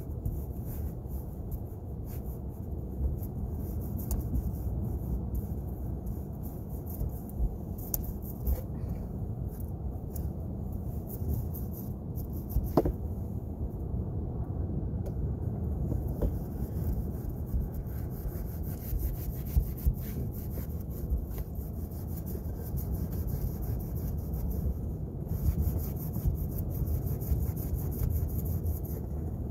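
Paintbrush rubbing over weathered wooden shingles in repeated strokes, with small ticks of the brush and handle against the wood over a steady low rumble.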